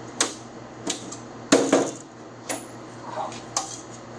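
Five separate sharp clicks and knocks from parts and hand tools being handled, the loudest about a second and a half in, over a low steady hum.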